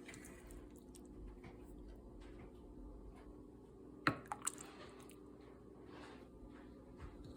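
Quiet kitchen handling sounds, soft and wet, with a sharp click about four seconds in and two smaller knocks just after it.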